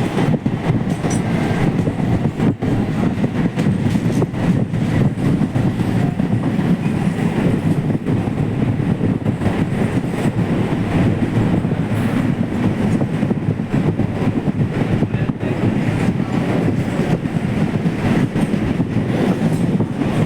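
A train running along the track: a loud, steady low rumble of wheels on rails that does not let up.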